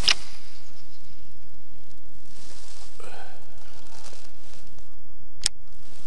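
A baitcasting rod being cast, with a sharp swish at the start. A single sharp click comes about five and a half seconds in.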